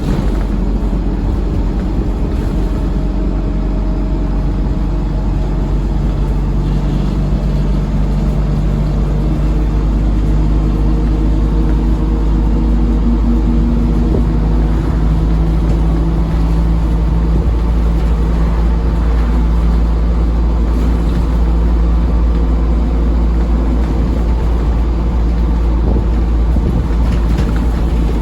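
Dennis Dart SLF bus heard on board under way: the engine and Allison automatic gearbox run with a loud, steady drone and a hoover-like whine. The engine note climbs a little in the middle as the bus gathers speed, then holds.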